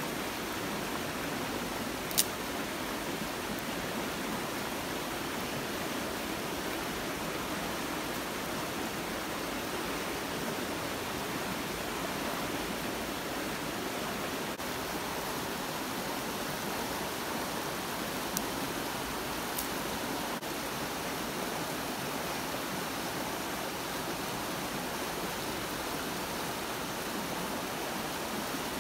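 A steady rushing hiss, like distant flowing water or wind, with one sharp click about two seconds in and two faint ticks a little past the middle.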